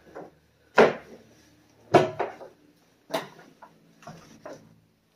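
Three loud knocks about a second apart, then a few lighter clunks, inside an empty semi-truck trailer.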